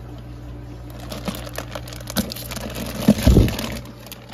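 Clear plastic fish bag crinkling and water sloshing as a hand handles the bag in a bucket, with a louder rustle and bump about three seconds in. A steady low hum runs underneath.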